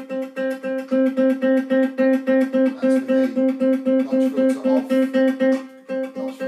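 Godin MultiUke electro-acoustic tenor ukulele played through a Cornell valve acoustic amp, with the Boss AD-2 preamp's notch filter engaged. One chord is struck over and over in quick, even strokes, about four to five a second, with a short break near the end.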